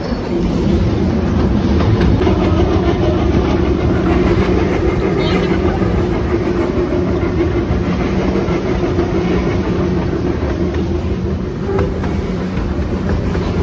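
Puffing Billy narrow-gauge steam train running along the track, heard from an open carriage window: steady rolling rail noise with a low hum underneath.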